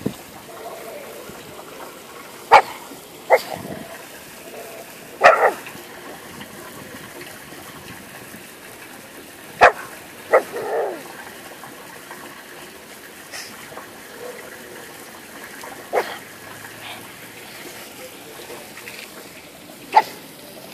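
A dog giving short, sharp barks, one at a time every few seconds, about eight in all.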